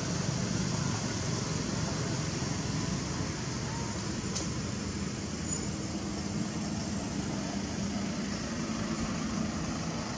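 Steady ambient rumble with an even hiss over it, and no clear monkey calls; one faint click a little over four seconds in.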